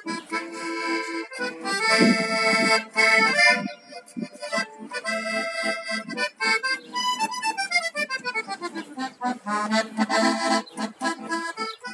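Accordion playing a tune: full sustained chords at first, then quicker melody notes with fast runs up and down the scale.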